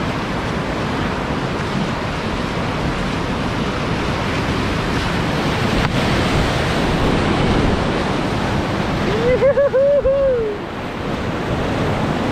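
Whitewater rapid rushing steadily around a kayak running it, a continuous noise of churning water. About nine seconds in, a paddler gives a brief warbling whoop.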